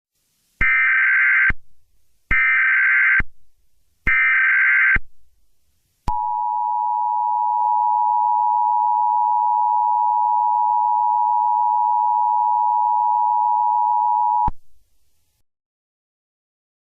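Emergency Alert System (EAS) SAME header: three short bursts of warbling digital data tone, each just under a second long. They are followed by the EAS two-tone attention signal, a steady dual tone held for about eight seconds before cutting off suddenly, marking the start of an emergency alert broadcast.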